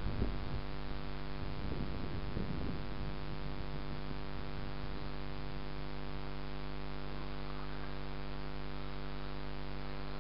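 A steady electrical hum with many even overtones, with a few faint knocks in the first few seconds.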